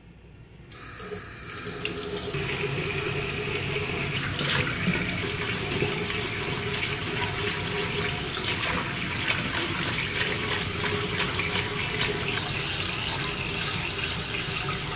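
Bathroom sink tap turned on about a second in, then water running steadily from the faucet into the basin, splashing off a makeup brush being worked on a silicone cleaning mat under the stream.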